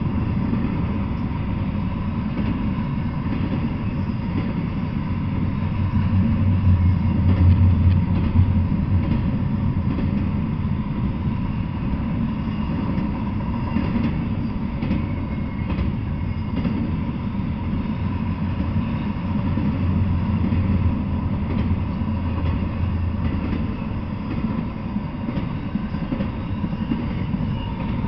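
Double-stack intermodal freight train passing: a steady rumble of wheels on rail, swelling about six to nine seconds in, with a few faint clicks near the middle.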